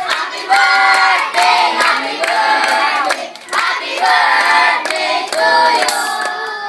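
A crowd of children and adults singing together in chorus, in held phrases, with hands clapping along.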